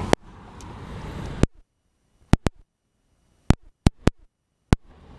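Wind buffeting the microphone for about a second and a half, then about eight sharp, irregularly spaced clicks over near-dead silence, with the wind noise coming back near the end.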